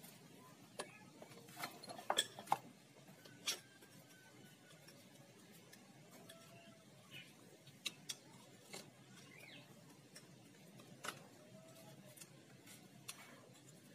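Faint, scattered clicks and taps of metal hand tools against the aluminium crankcase of a Yamaha Vega ZR engine during disassembly, with a quick cluster of knocks about two seconds in and single ticks after that.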